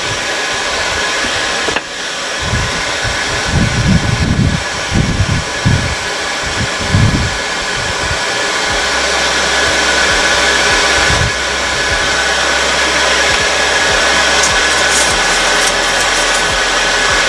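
Air blower feeding a forge fire, running steadily with a hiss and a faint motor whine. A few low bumps come in the first half.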